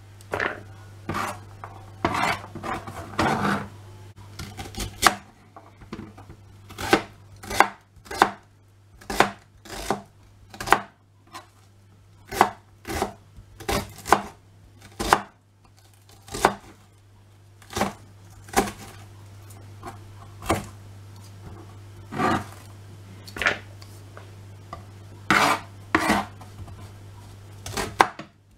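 Kitchen knife chopping vegetables, an onion among them, on a cutting board: sharp knocks of the blade on the board, about one a second with some quicker runs. A steady low hum runs underneath.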